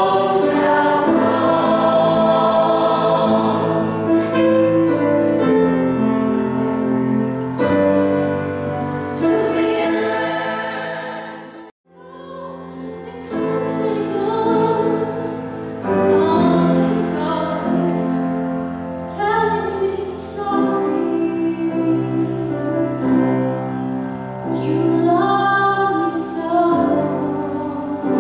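Mixed choir singing. About twelve seconds in the sound cuts out for a moment, and then a woman sings solo into a microphone.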